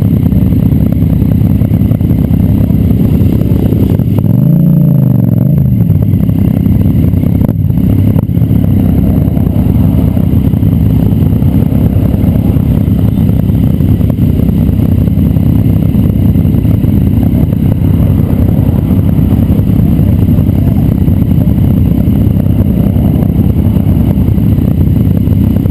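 Motorcycle riding along with its engine running under a steady low rumble. About four seconds in, an engine note rises and falls briefly.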